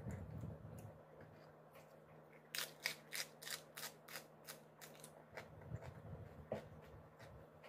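Mouth sounds of eating fish and greens: a run of crisp clicks and smacks of chewing, about three a second, starting a couple of seconds in and thinning out near the end.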